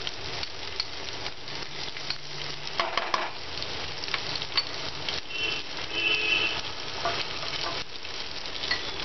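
Onion slices, garlic, cumin and fenugreek seeds and turmeric sizzling in a little oil in a non-stick kadai on low heat. A ladle stirs them, with occasional light clicks against the pan.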